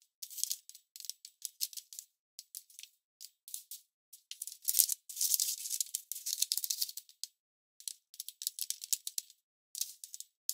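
A sheet of origami paper rustling and crackling as hands fold and crease it, in irregular short bursts that are densest and loudest about halfway through.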